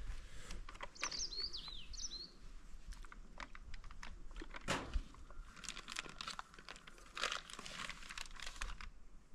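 Scattered crackling and rustling clicks, with a short bird call of a few quick high chirps about a second in.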